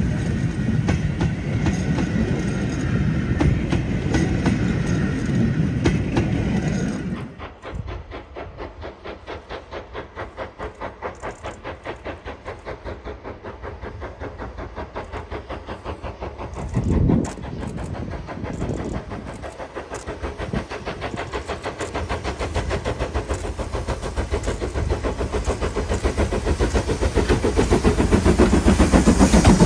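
Red carriages of a steam-hauled train rolling past close by, with a continuous wheel rumble. About seven seconds in this gives way to the Ivatt Class 2 2-6-0 steam locomotive approaching from a distance under power, its exhaust beats coming in a steady rhythm and growing louder as it nears. There is one brief low thump part way through.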